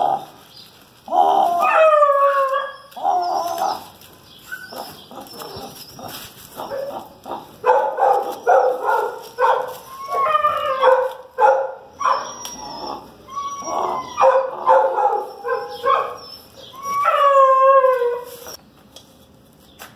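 Two Pit Monster puppies yipping and barking in bursts while they tug at a bag on a broom, with whiny calls that slide down in pitch. The loudest bursts come about two seconds in, in the middle, and near the end.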